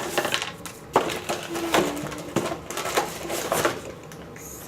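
A craft kit's pieces and packaging being handled: a string of light clicks and taps, the sharpest about a second in.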